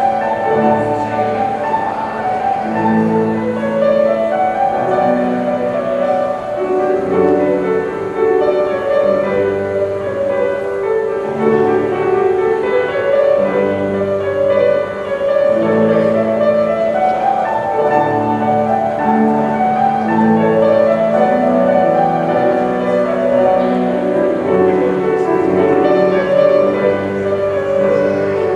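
Instrumental classical music, piano with bowed strings, playing a slow, steady melody.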